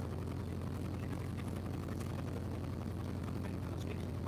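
Cessna 152's four-cylinder Lycoming engine and propeller running steadily at low taxi power, heard from inside the cabin as an even low drone.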